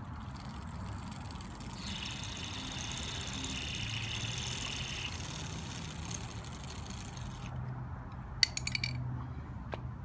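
Bicycle drivetrain ticking and whirring as the cranks are turned by hand, with the chain running through a handheld lubricating cup. It stops abruptly about seven and a half seconds in. A quick burst of clicks follows, then one more click near the end.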